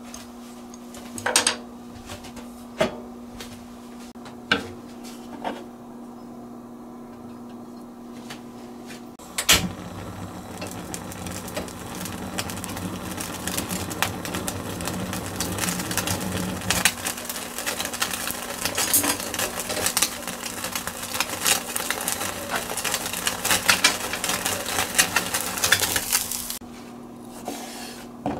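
A few light clicks of chopsticks on a porcelain plate. Then a gas burner is lit with a loud click, and a skin-on block of sawara (Spanish mackerel) sears on a wire rack over the open flame: a steady rush of flame with crackling and popping that grows busier, then stops suddenly near the end. A steady low hum runs underneath throughout.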